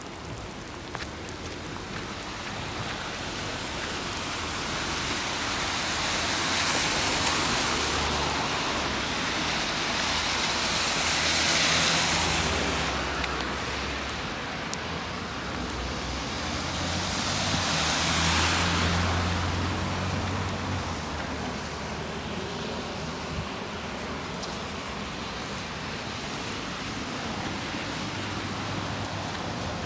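Steady hiss of rain on wet pavement, with cars passing on the wet road: each pass is a swelling tyre hiss with a low rumble that rises and fades, the loudest two near the middle.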